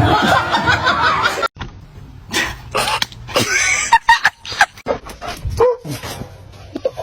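A dog barking and yipping in short separate calls, starting after an abrupt cut about a second and a half in.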